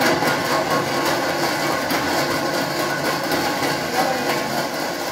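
Blender motor running steadily at high speed, churning a pitcher of ice, water and frappe powder.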